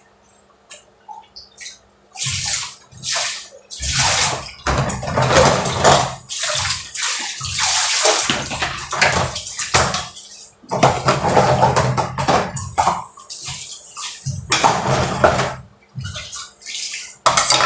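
Water splashing and pouring from a storage drum, in irregular pours with short breaks, starting about two seconds in.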